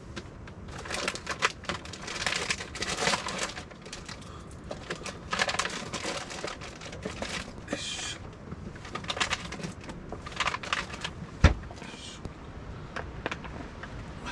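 Rustling and crinkling in bursts with many small clicks and knocks, as of gear or bags being handled, and one sharp thump about eleven seconds in.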